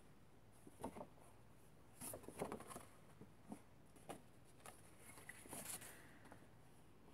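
Faint rustles and light taps of dried, crinkled eco-dyed paper sheets being lifted and turned over by hand, in short scattered bursts.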